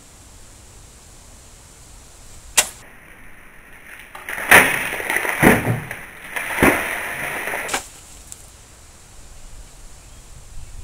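Hanwei 1881 Russian shashka cutting through a water-filled plastic bottle: the swish and sharp cut of the blade, then water splashing onto the concrete and bottle pieces falling, in three loud bursts over about three seconds. A single sharp click comes a couple of seconds before the cut.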